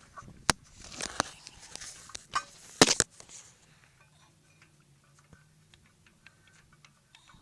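Spark plug socket and tools clinking and scraping against metal as a spark plug is worked into its hole, with several sharp clicks in the first three seconds, then only a faint low hum.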